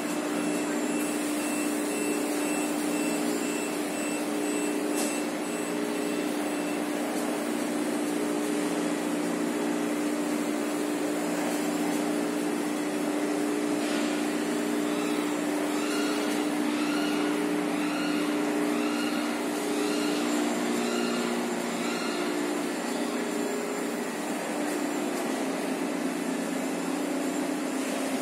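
Steady hum and drone of factory machinery in a tissue-paper converting hall. Midway a signal tone repeats about once a second, eight times or so.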